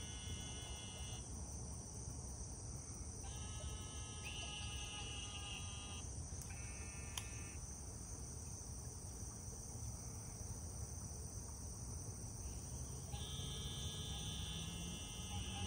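Insects calling: a steady high-pitched drone throughout, with pulsing trills that switch on and off abruptly, each lasting one to three seconds, about four times.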